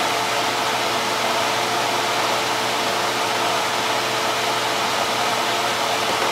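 A fan running steadily: an even rushing noise with a faint, steady hum under it.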